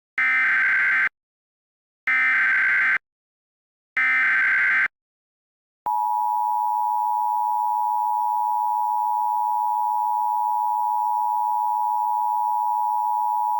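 Emergency Alert System tones: three one-second bursts of SAME header data a second apart. About six seconds in comes the EAS attention signal, a steady two-tone alert tone (853 and 960 Hz) held for about eight seconds.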